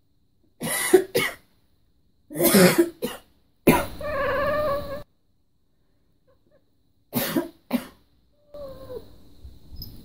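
A person coughs in short pairs, and a calico cat answers with a wavering, complaining meow. After another pair of coughs near the end comes a quieter cat call that falls in pitch.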